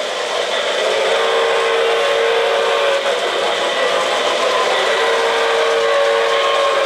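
O-gauge model steam locomotive's electronic sound system blowing a chime steam whistle, two long blasts about four seconds apart, over the steady running noise of the model train on the track.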